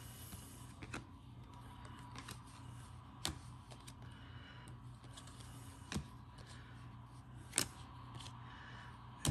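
Stiff chrome trading cards being handled and sorted by hand, with a few sharp clicks a second or two apart as cards snap against the stack or are set down on the table, over a faint steady low hum.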